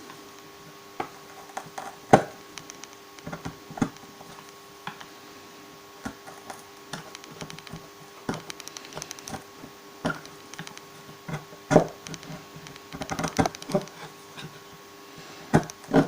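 Wood chisel paring out the rounded corners of a routed guitar neck pocket to square them off: irregular sharp clicks, taps and short scrapes of steel on wood, with a faint steady hum underneath.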